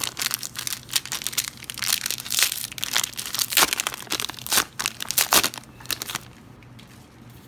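Plastic wrapper of a 2017 Panini Football hanger pack of trading cards being torn open and crinkled, an irregular crackling that stops about six seconds in.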